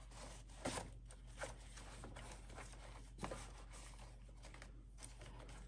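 Faint handling noises: three or four short, soft knocks and rubs as the plastic battery protector is worked back around a car battery, over a steady low hum.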